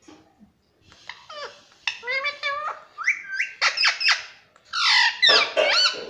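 Indian ringneck parakeet chattering in a run of short, high, squeaky calls that slide up and down in pitch, getting louder toward the end.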